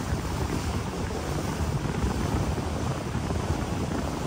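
Steady wind noise on the microphone over the low, even rumble of a river cruise boat under way.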